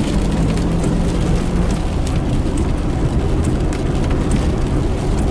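Steady road and engine rumble heard inside a car's cabin while driving on a wet road, with scattered sharp ticks of raindrops striking the windshield.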